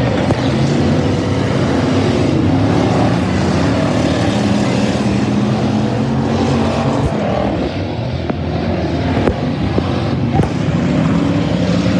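Several stock car engines running loud at once, their pitch shifting as the cars race round the track, with a few sharp knocks in the second half.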